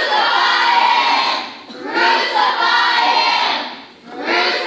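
A crowd of young voices calling out together in unison, three times, each call about two seconds apart.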